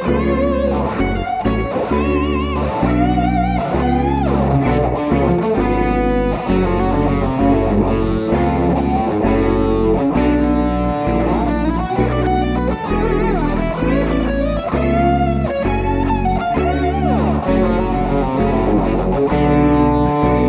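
Electric guitar playing a tarantella in F-sharp minor: quick runs of notes with bends and vibrato in the lead line, over a steady line of low bass notes.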